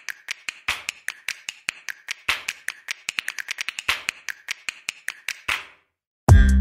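A rapid, uneven run of sharp clicks or taps, several a second, stopping about five and a half seconds in. After a brief silence, loud electronic music with heavy bass starts near the end.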